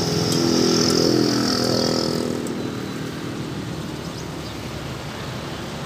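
A vehicle engine running nearby, swelling to its loudest about a second in and fading after about two seconds, with a high whine over it. A steady background hum stays beneath.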